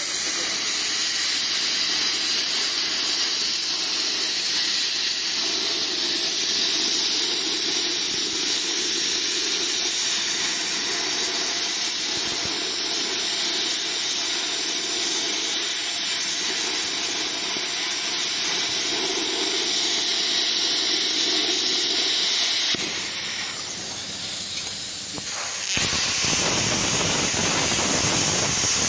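Tân Thành CUT 100F inverter plasma cutter running, with a steady hiss of the plasma arc and compressed air. The hiss drops away briefly about 23 seconds in and returns louder near the end.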